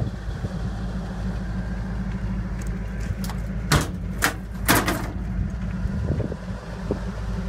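Steel service-body compartment doors being handled, with a few sharp metallic clicks and knocks from the latches and hinges about halfway through. Under them runs a steady low rumble.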